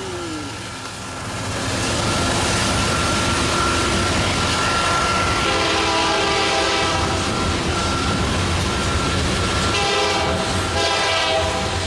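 Freight cars rumbling and clacking past on the rails, while a multi-chime diesel locomotive horn sounds two blasts, about four seconds apart, the first near the middle and the second near the end.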